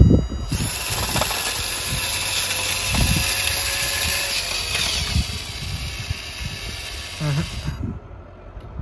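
Small electric motor and gear drive of a scale-model super seeder running its tiller blades through sand: a steady whir with scraping grit and a few knocks. It starts about half a second in, after a thump, and cuts off shortly before the end. The maker blames the knocking on the unweighted seeder jumping.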